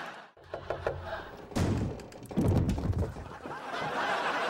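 A few light knocks, then heavy thuds on a wooden door, followed by studio audience laughter near the end.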